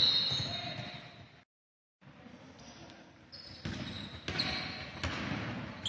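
Basketball bouncing on a gym floor amid players' footsteps, with several sharp thuds echoing in the large hall. The sound cuts out completely for about half a second, about a second and a half in.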